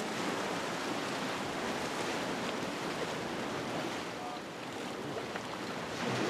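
Steady wash of ocean surf, an even hiss of waves without distinct breakers.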